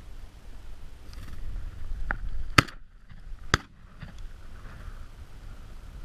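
Two shotgun shots about a second apart.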